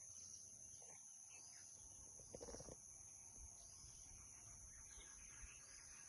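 Faint outdoor ambience: a steady high-pitched insect drone with a few faint, brief bird calls and light low rumble.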